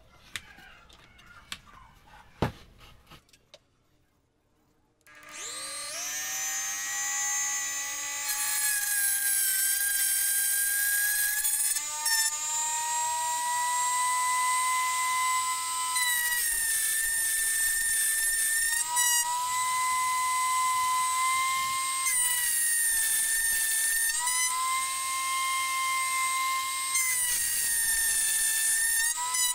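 Dremel rotary tool starting about five seconds in, after a few light clicks of the jig being handled. It spins up to a steady high whine, and its pitch sags and recovers again and again as the bit cuts tread notches into the rim of a teak wheel.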